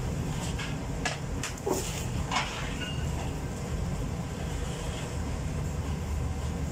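Steady low rumble of commercial bakery machinery running, with a few short knocks from trays and bread being handled in the first half.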